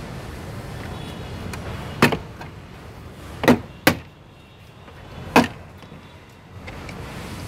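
Plastic retaining clips of a Tata Tigor's door trim panel popping loose as the panel is pried off with a screwdriver and pulled away by hand: four sharp snaps, one about two seconds in, two close together about three and a half seconds in, and one more about five and a half seconds in.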